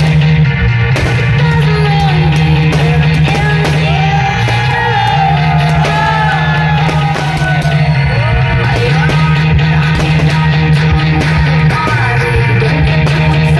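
Rock music with a singing voice over a steady bass line and frequent sharp hits.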